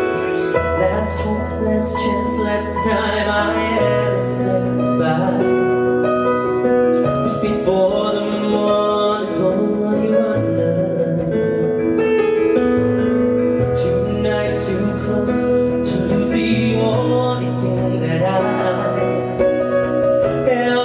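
Live pop band playing a slow ballad: sustained keyboard chords over a bass line that moves to a new note every few seconds, with a male singer's voice coming in at times.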